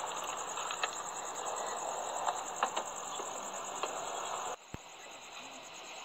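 Steady high-pitched insect trill with a few light clicks and taps from parts being handled under the hood. The trill cuts off abruptly about four and a half seconds in.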